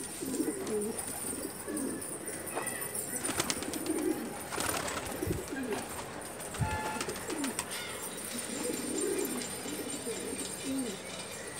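Several domestic pigeons cooing over one another in short, low, warbling phrases that repeat throughout, with a few sharp clicks and soft thumps among them.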